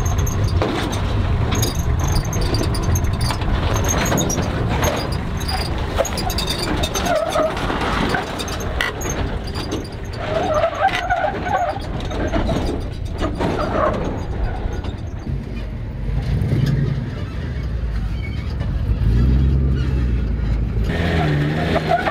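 Toyota Hilux pickup's engine working under load as the truck crawls up slickrock, with scrapes and knocks from the tyres and chassis on the rock; the engine revs up over the last few seconds.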